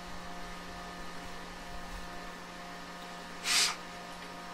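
Interior running sound of a JR West 223-5000 series electric train: a steady low rumble with a constant electrical hum and several faint steady tones. About three and a half seconds in comes one short, loud burst of hiss.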